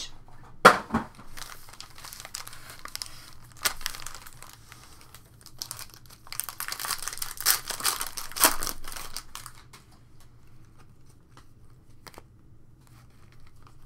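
A foil trading-card pack wrapper being crinkled and torn open, with a sharp crackle about a second in and the densest crinkling from about six to nine seconds in. Faint clicks of cards being handled follow.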